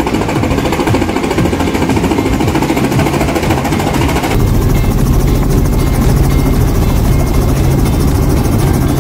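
Small two-blade helicopter hovering low over a helipad, its rotor chopping. About four seconds in, the sound cuts to the steady drone of the engine and rotor heard from inside the cabin.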